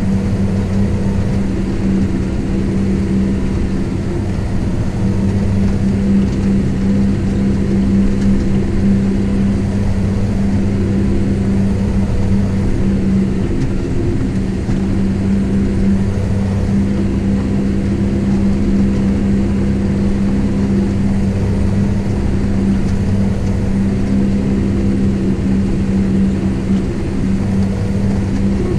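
Kubota M7172 tractor's four-cylinder diesel engine running steadily under ploughing load, heard from inside the cab as a constant deep drone with a strong hum.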